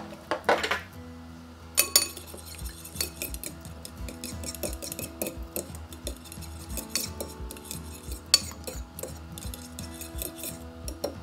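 Metal fork whisking an oil-and-lemon salad dressing in a small glass bowl, the tines clinking quickly and unevenly against the glass from about two seconds in.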